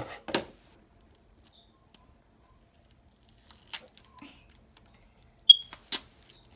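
Plastic slime containers being handled: a rustle just after the start, scattered faint crackles, and a sharp click about five and a half seconds in, followed by a few more clicks.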